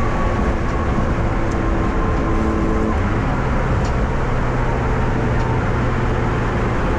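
Turbocharged Honda D16 engine and road noise heard from inside the gutted car's cabin, running steadily with a clutch that won't grab. About three seconds in the engine note shifts slightly, then holds steady.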